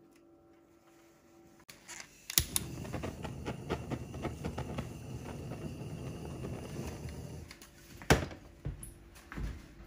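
A handheld gas kitchen torch lights with a click about two seconds in, then its flame rushes steadily for about five seconds as it is passed over cheesecake batter to pop the surface bubbles. A sharp knock follows near the end.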